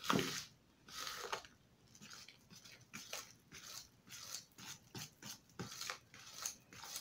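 A metal spoon stirring flour in a plastic mixing bowl: faint, irregular scraping strokes, about two a second.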